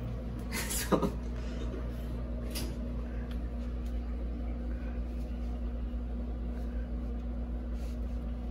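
A brief knock with a short falling creak about a second in, as a person settles onto a sofa, over a steady low electrical hum.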